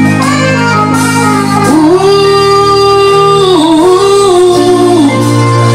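Live band music with a singer's wordless line: a long, wavering note held from about two seconds in, dipping and bending before it ends near the close.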